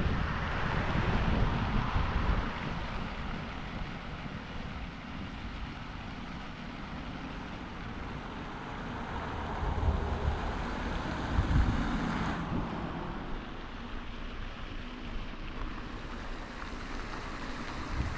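Wind buffeting the microphone outdoors, a gusty low rumble that is strongest at the start and again about ten to twelve seconds in.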